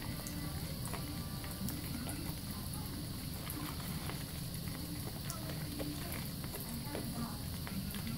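Wet squishing and crackling of thick soap lather as hands rub and squeeze a bar of soap, with many small irregular clicks, over the steady splash of a tap running into the sink.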